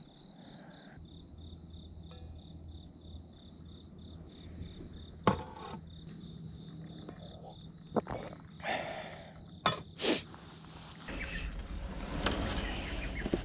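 Insects calling: a steady high trill with a pulsed chirp about four times a second. It is broken by a few sharp knocks, one about five seconds in and a cluster near the middle to later part.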